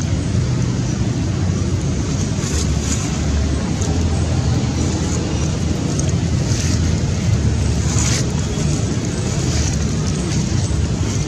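Steady low outdoor rumble, like wind on the microphone or distant traffic, with a few brief high rustles near the start, middle and about two-thirds of the way through.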